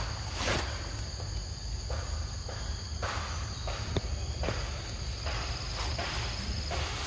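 A steady high insect drone, with soft rustling steps in grass and leaf litter coming again and again, over a low rumble.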